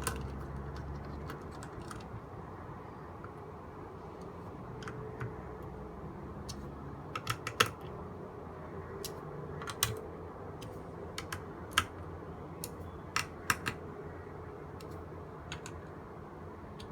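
Scattered small clicks and taps of a screwdriver and graphics-card parts being handled, some in quick clusters of two or three, over a steady low hiss.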